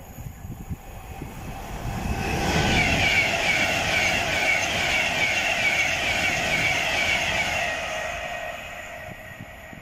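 Class 390 Pendolino electric train passing at speed, growing louder over the first couple of seconds and fading away after the middle. At its loudest a regular high-pitched pattern repeats about two to three times a second.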